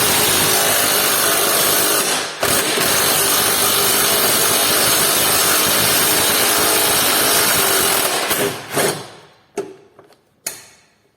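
Power tool running in two long bursts, about two seconds and then about six, with a brief break between, spinning off the nut under the suspension part; a few short clicks follow near the end.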